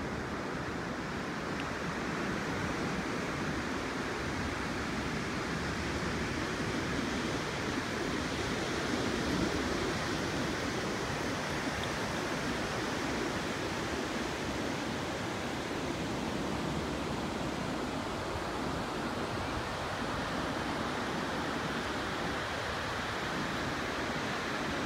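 Ocean surf washing onto a sandy beach, heard as a steady rush of noise.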